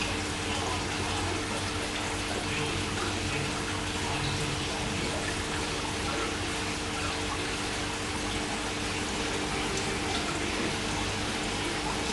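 Steady rush of aquarium water circulation, with a steady low hum beneath it.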